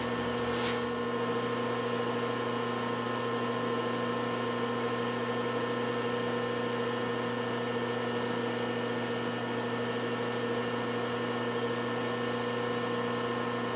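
Steady machine hum at a constant pitch, with a few fainter higher tones over it and no change in level.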